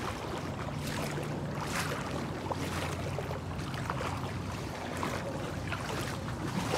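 Footsteps wading and splashing through shallow seawater and wet sand, about one step a second, over a steady low hum.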